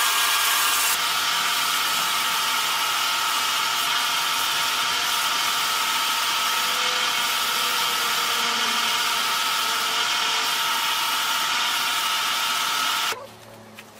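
Large wood lathe running with a log spinning on it, a steady machine whine mixed with the hiss of a tool working the turning wood. It stops abruptly about a second before the end.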